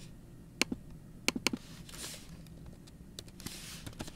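Computer keyboard keys typed in a few separate clicks, including a quick run of three about a second and a half in.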